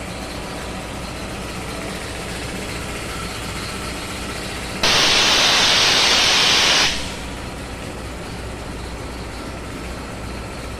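3 HP LG air compressor running steadily after its service, with a loud burst of compressed air hissing out for about two seconds, starting and stopping sharply about five seconds in.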